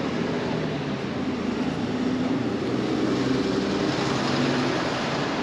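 City street traffic: vehicle engines running and passing in a steady hum that swells a little around the middle.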